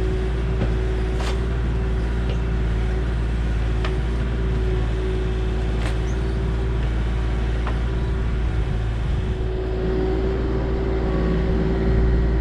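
Kubota KX040 mini excavator's diesel engine running steadily under work, with a steady hydraulic whine over the rumble. A few sharp clicks or cracks stand out, the clearest about a second in and about six seconds in.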